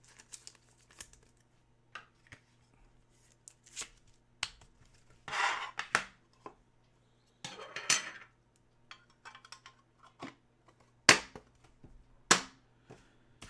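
Trading cards and plastic card holders being handled: scattered light clicks and taps, two brief rustling slides around the middle, and two sharp snaps near the end.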